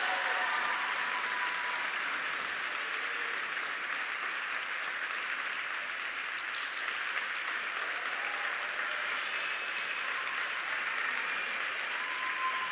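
A small audience applauding steadily.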